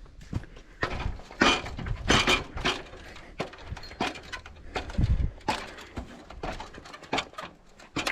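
Irregular knocks and clunks, objects being handled and set down, with no steady motor sound.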